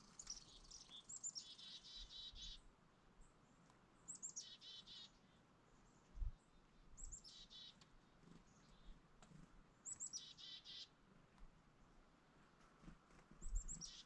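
Small songbirds calling at a feeder: five calls, each a few high notes followed by a quick run of buzzy notes, about every three seconds. Two brief low thumps, about six seconds in and near the end.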